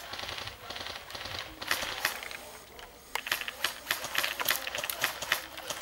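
Airsoft guns firing: rapid, sharp mechanical clicks of electric gearbox rifles in short bursts, sparse at first and coming thick and fast in the second half.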